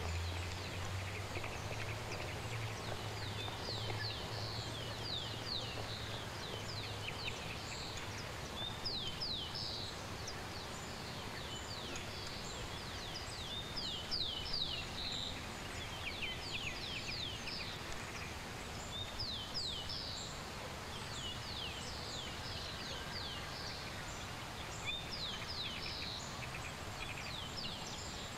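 Small birds chirping in trees, short falling chirps in quick runs repeating throughout, over a steady outdoor hiss. A low hum sounds for the first several seconds, then fades.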